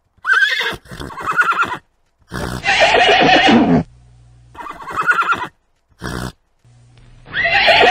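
Horses neighing and whinnying in a string of about six separate calls, each starting and cutting off abruptly. The longest and loudest call comes about three seconds in, falling in pitch.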